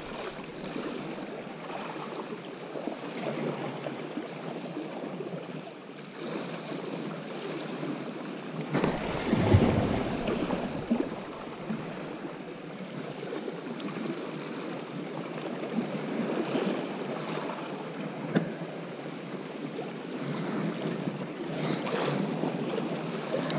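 Small sea waves lapping and washing against shoreline rocks, with some wind on the microphone. A louder surge comes about nine seconds in.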